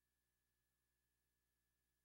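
Near silence: the soundtrack holds only a very faint, steady hum and hiss.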